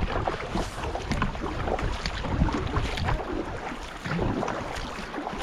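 Canoe paddles dipping and pulling through river water in repeated strokes, with water splashing along the hull of a racing canoe.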